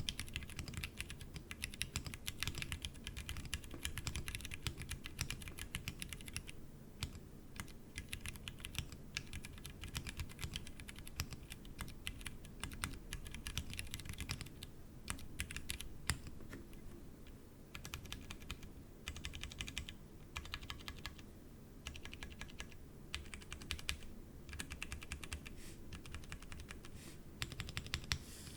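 Tofu60 mechanical keyboard with stock Cherry MX Brown tactile switches typed on directly on a bare desk, in a fast run of key clicks and clacks. About halfway through, the clicks thin out to separate presses of the modifier keys.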